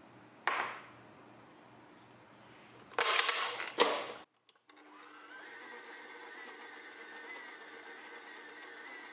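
Stand mixer working dough in a steel bowl: a short knock about half a second in and a loud noisy stretch about three seconds in as the beater churns the dough. After a brief cut-out, the mixer motor runs at a higher speed setting with a steady whirring whine.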